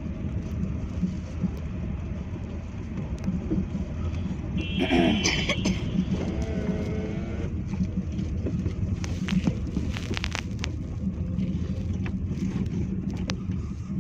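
Car cabin on a rough gravel road: steady low engine and tyre rumble. A brief wavering pitched sound comes about five seconds in, and a cluster of knocks and rattles from the jolting car comes around nine to eleven seconds in.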